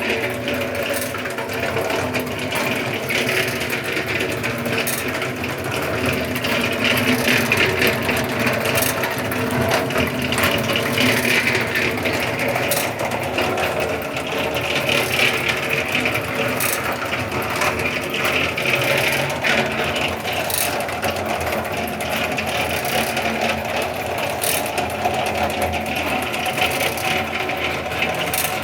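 Homemade concrete mixer running steadily, a continuous mechanical whir with occasional short clicks.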